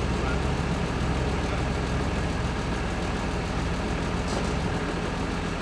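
Four-wheel drive's engine idling steadily, a low even hum that shifts slightly near the end.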